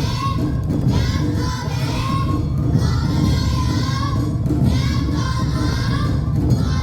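Awa Odori festival band playing: drums beating steadily under a repeating high melody.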